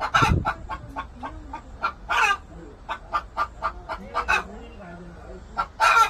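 Korean native chickens clucking in a quick run of short clucks, several a second, broken by a few longer, louder calls, the loudest near the end.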